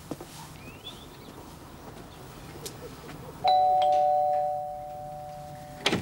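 Front-door bell chime rings once about three and a half seconds in: two steady tones sounding together, sudden at the start and fading away over about two seconds. A sharp click follows near the end.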